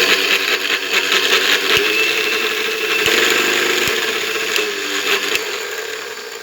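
A mixer grinder's universal motor running at speed: a loud, steady whirring whine with a rattle. It gets gradually quieter over the last few seconds.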